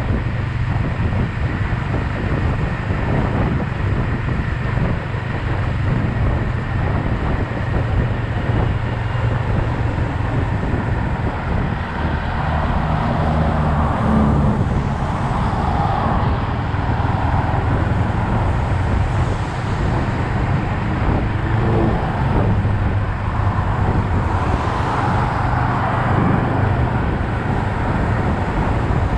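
Yamaha XSR 155's single-cylinder engine running while riding in traffic, with steady wind and road noise over it. The engine note shifts a little through the middle and again near the end.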